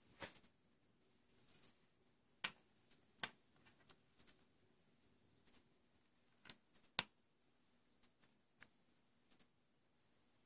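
Near silence broken by scattered faint plastic clicks from fingers handling the inline remote of Bluetooth earphones while its power button is held down; the loudest clicks come about two and a half and seven seconds in.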